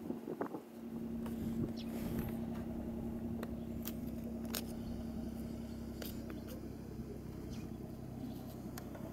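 A steady low engine hum, with scattered light clicks and scrapes.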